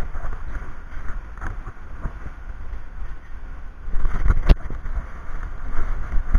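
Wind buffeting the microphone as a steady low rumble, with a single sharp click or knock about four and a half seconds in.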